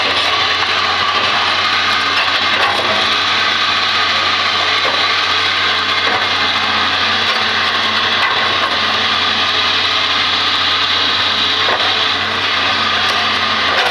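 Hitachi ZX200 excavator's diesel engine running steadily, with a constant low hum.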